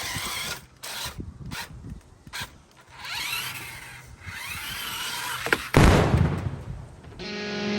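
Toy RC Jeep's small electric drive motors and plastic gears whining in bursts, the pitch rising and falling as it drives and skid-steers, with a loud thump about six seconds in. Music with an electric guitar starts near the end.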